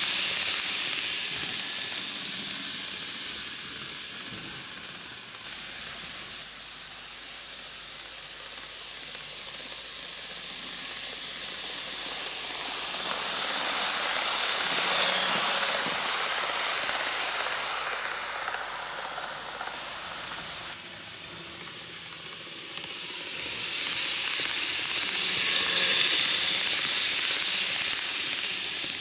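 KATO N-gauge E4 series Max Toki model Shinkansen running laps on TOMIX cant track: the small motor and metal wheels on the rails make a high rushing noise. It swells as the train passes close by, three times: at the start, about halfway through and a few seconds before the end, and fades in between.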